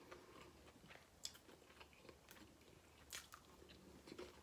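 Faint close-up chewing of a mouthful of fast food, with a few sharp wet mouth clicks.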